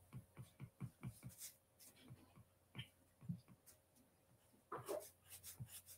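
Near silence: faint room tone with a few soft ticks, and a brief faint voice about five seconds in.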